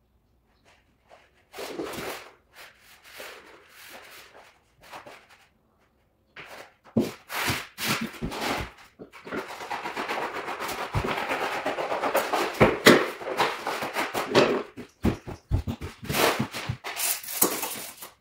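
Wallpaper being handled on the floor: paper rustling and sliding, with scattered clicks and knocks, and a steadier stretch of rustling about halfway through.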